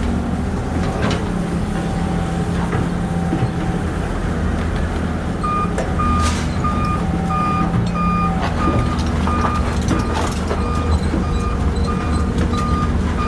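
Heavy construction vehicle's engine running steadily. From about five and a half seconds in, a reversing alarm beeps about twice a second, signalling that the machine is backing up.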